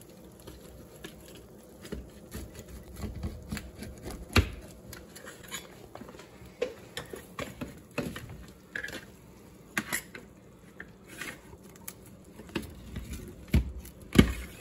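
Pizza wheel cutter rolling through a baked sheet-pan pizza, with irregular light clicks and a few louder knocks as it hits the metal sheet pan, two of them near the end.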